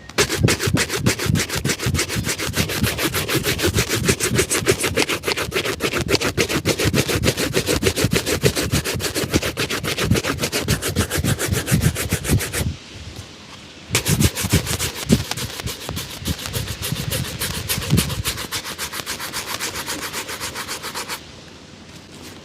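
Rapid back-and-forth rubbing strokes on a leather shoe during shoe shining, several strokes a second in a steady rhythm. They stop for about a second just past the middle, then resume, going softer near the end.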